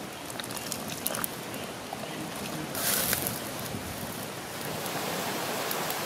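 Soup boiling hard in a clay pot over a wood fire: a steady bubbling hiss with scattered crackles, and a brief louder rush of noise about three seconds in as a wooden ladle stirs the broth.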